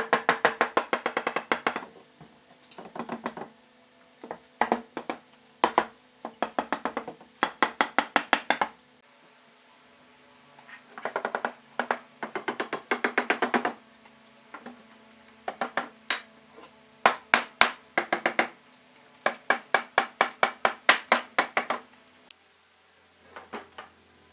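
Rapid knocking in bursts of one to two seconds, about ten sharp knocks a second, with short pauses between bursts, over a steady low hum that stops near the end.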